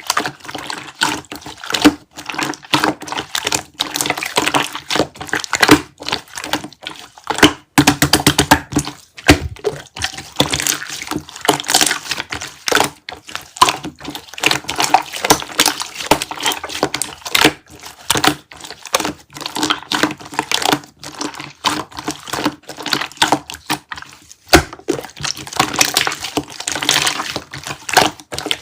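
Rapid, irregular crackling and clicking, like something wet or sticky being pressed and worked close to the microphone, with brief pauses.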